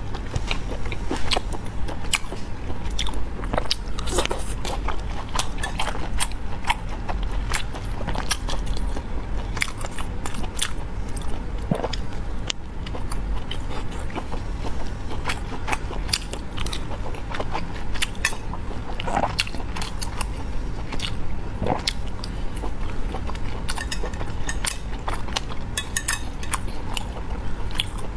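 Close-miked biting and chewing of red ring-shaped sausages (quanquan chang): a dense, irregular run of wet mouth clicks and small snaps as the sausage skin is bitten and chewed.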